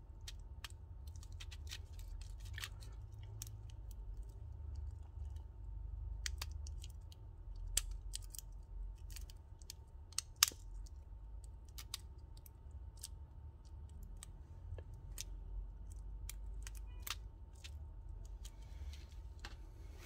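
Irregular small clicks and taps of hand tools and small parts being handled while repairing a Bluetooth speaker's micro USB charging port, with one sharper click about halfway through. Underneath are a low rumble and a faint steady high tone.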